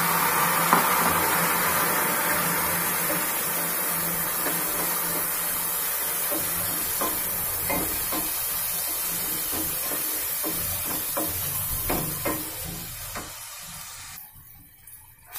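Chopped tomatoes sizzling in hot oil with frying onions in a kadhai: a steady hiss that slowly fades. In the second half a wooden spatula scrapes and knocks against the pan as they are stirred, and the sound drops away near the end.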